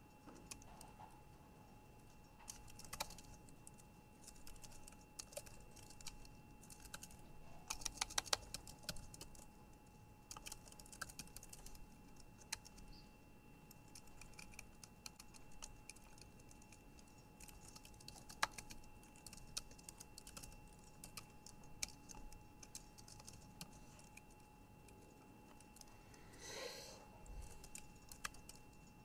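Typing on a computer keyboard: irregular runs of keystrokes with pauses between, including a fast burst about eight seconds in. A faint steady whine sits underneath, and a brief rustle comes near the end.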